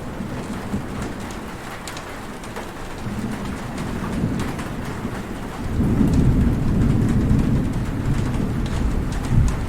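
Heavy rain falling steadily, with a low rumble of thunder swelling up about six seconds in and rolling on.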